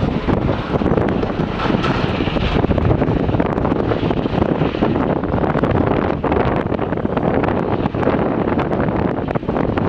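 Diesel engine of a JCB 3DX backhoe loader running steadily while it works, with wind buffeting the microphone.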